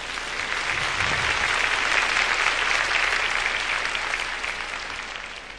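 Large congregation applauding, swelling over the first two seconds and then fading away.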